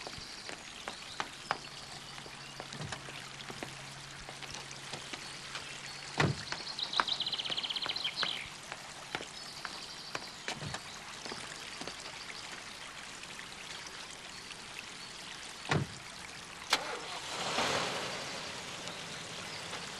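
Steady splashing of a garden fountain, with footsteps and a couple of car doors thumping shut, one about six seconds in and one near the end.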